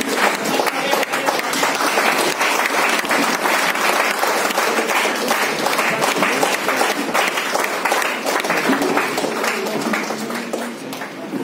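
Audience applauding: dense, steady clapping from many hands that thins out near the end.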